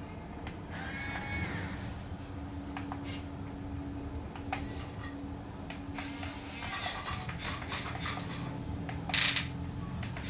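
Small electric motors and plastic gearboxes of an RC excavator whining as it swings and lowers its arm and bucket into sand. A steady hum runs underneath, with a whine that rises and falls about a second in, scattered clicks, and a short louder burst of noise near the end.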